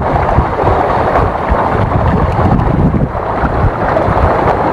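Wind buffeting the microphone over open sea: a steady, loud, fluttering rumble with no distinct events.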